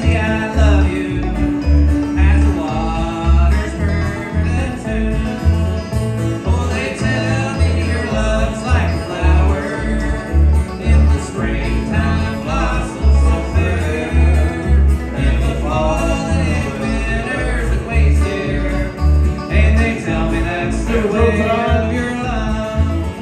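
Bluegrass band playing live without singing: acoustic guitar, banjo, fiddle and bass, with the bass notes on a steady beat and a bending melody line over the top.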